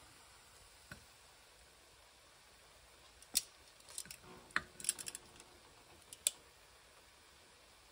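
Metal kitchen tongs clicking and tapping against a ceramic plate as noodles are lifted and set down: one light click about a second in, then a handful of sharp clicks between about three and a half and six and a half seconds in.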